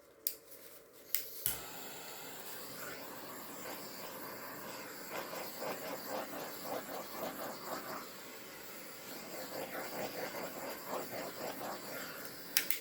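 A torch lit with a sharp click about a second and a half in, its flame hissing steadily as it is passed over wet poured acrylic paint to pop air bubbles, then shut off with clicks near the end.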